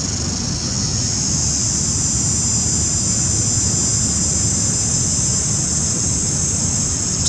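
Steady outdoor ambience: a constant high-pitched drone over a low, even rumble, with no distinct events.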